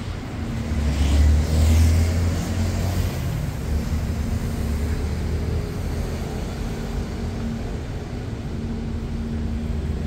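City street traffic: a motor vehicle passes close about a second in, its low engine rumble loudest over the first few seconds, over a steady traffic rumble.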